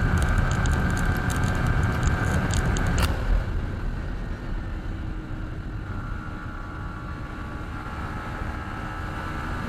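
Yamaha MT-15's single-cylinder 155 cc engine held at high revs for about three seconds, then a sharp click and the revs fall away, the engine running on at lower revs.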